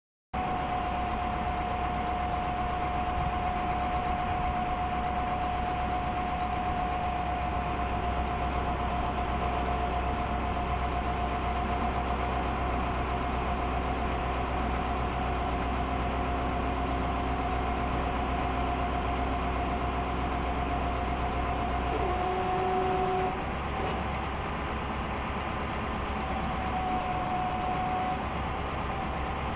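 Caterpillar diesel of a Ford L8000 derrick digger running steadily under hydraulic load, with a high steady whine from the hydraulics as the boom and auger are moved; the whine and drone shift in pitch about 22 seconds in.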